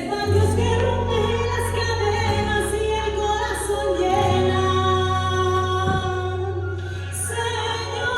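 Christian worship music: sung voices holding long notes over sustained bass and accompaniment.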